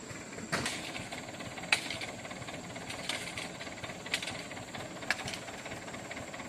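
Truck engine idling under five sharp strikes about one a second: a hoe chopping into packed mud and gravel around the wheels of a bogged truck.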